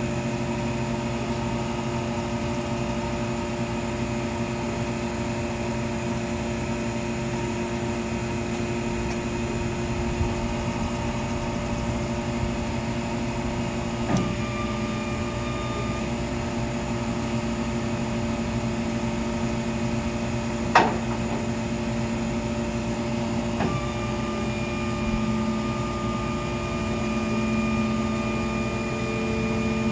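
A steady mechanical drone from a running engine or motor, with a few sharp clicks along the way; the loudest comes about two-thirds in, and the drone's pitch pattern shifts slightly after the clicks.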